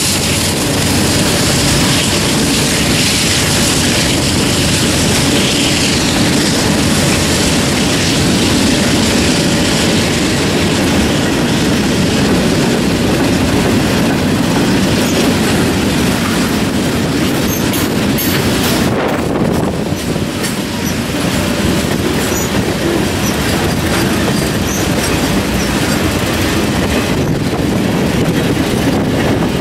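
Freight train rolling past at close range: the last diesel locomotives and then covered hoppers and boxcars clattering along the track, loud and steady, with a short dip in level about two-thirds of the way through.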